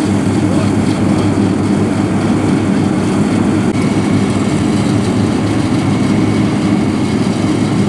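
Diesel engines of road-paving machinery, an asphalt paver and a road roller, running with a steady low drone that does not change speed.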